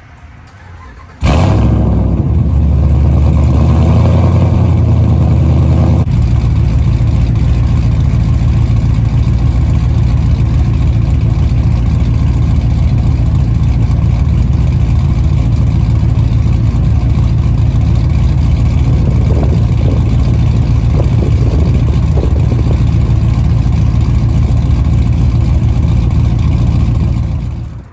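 Ram 1500 pickup's 5.7 L Hemi V8 starting about a second in, its first start on a freshly flashed custom tune. It runs at a higher, loud fast idle for about five seconds after catching, then settles into a steady idle heard at the exhaust.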